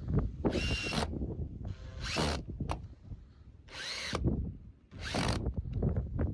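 Cordless drill run in four short bursts of about half a second each, its motor pitch rising and falling in one of them, as it drives screws while the floor joists are fitted.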